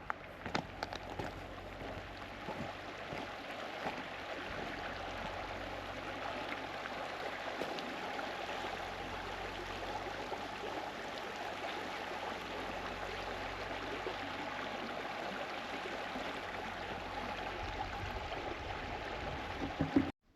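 Steady rushing of flowing water from a stream, with a few light clicks in the first second; it cuts off suddenly at the end.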